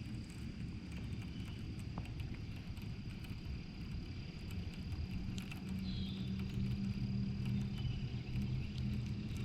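A low, steady motor hum that grows stronger about halfway through, over a thin continuous high insect whine, with a brief bird chirp near the middle.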